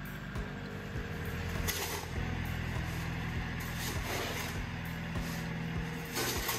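John Deere compact tractor's diesel engine running steadily. A shovel scrapes into a pile of gravel a few times over it.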